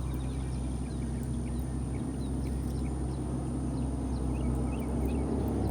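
A steady low engine drone, with a few faint bird chirps.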